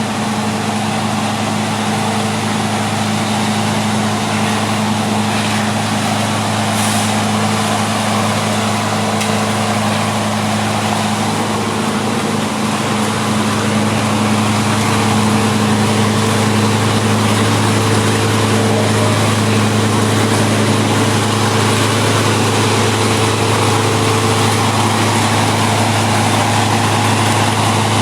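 Diesel engine of heavy road-works machinery running steadily with a low hum; it gets a little louder about halfway through.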